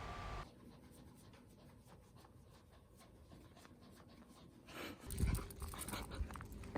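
Toy poodle panting, with faint clicks and scratches that grow louder near the end, along with a few low thumps.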